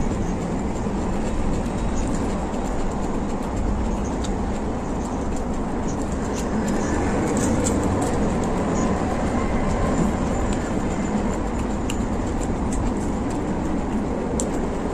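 A steady low rumble fills the background, with sparse faint clicks and smacks from chewing fried fish close to the microphone.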